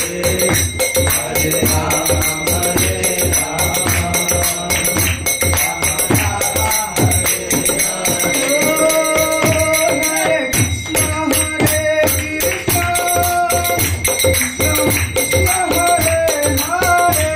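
Hindu devotional kirtan music: singing over a steady drum beat with jingling, rattling percussion, the singing clearer in the second half.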